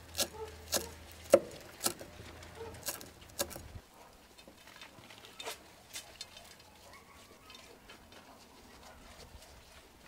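Chef's knife chopping parsley on a thick wooden board: sharp knocks about two a second, stopping after about three and a half seconds, followed by a few scattered faint taps.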